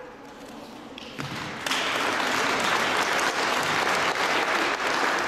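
Audience applauding, the clapping starting about a second and a half in and continuing steadily.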